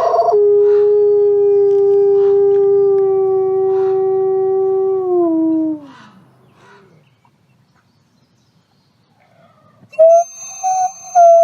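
Wolves howling: one long, steady howl that drops in pitch and fades out about six seconds in. After a few seconds of quiet, a second, higher howl starts near the end, with short breaks in it.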